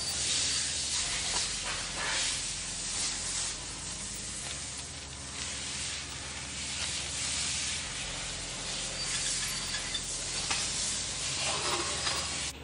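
Green masking paper rustling and crinkling as it is pulled off a dispenser roll and smoothed and pressed over a hood by hand, in an uneven run of rustles.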